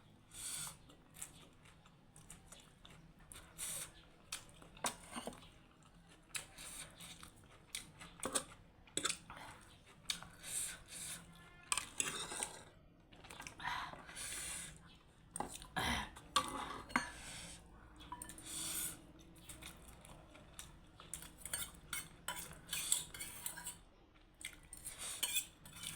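Cutlery clinking and scraping against a dish in irregular short clicks, with eating sounds in between.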